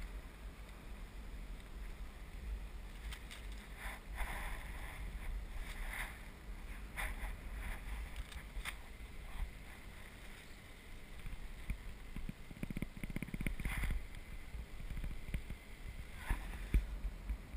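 Wind buffeting the microphone of a camera on a parasail harness high above the water: a steady low rumble with brief sharper noises now and then and a spell of faster flutter a little past the middle.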